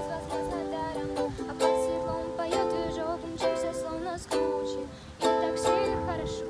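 Ukulele strummed in chords, with a strum every second or so and the chord changing several times.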